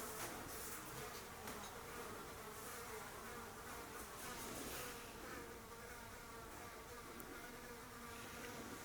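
Blowflies buzzing faintly and steadily as they fly about a room.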